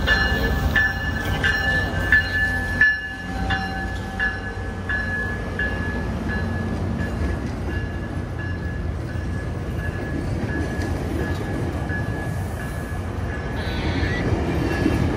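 Tri-Rail commuter train pulling in close by, a diesel locomotive and bilevel coaches rolling past with a steady rumble. A bell rings steadily, about three strikes every two seconds, clear for the first few seconds and fainter after.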